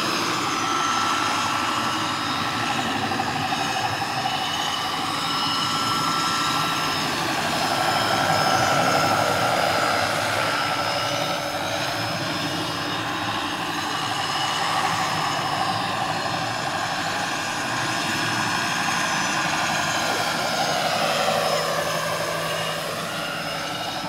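RC scale model Mil Mi-24 Hind helicopter flying, its rotors and drive giving a steady whine; the whine's pitch dips and recovers about three-quarters of the way through as it manoeuvres.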